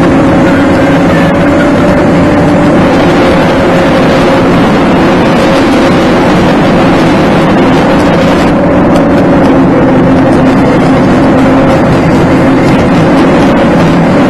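Car engine and tyre noise heard from inside the cabin while driving: a steady drone with a constant pitched hum, played back at double speed. The higher road hiss drops away about eight seconds in.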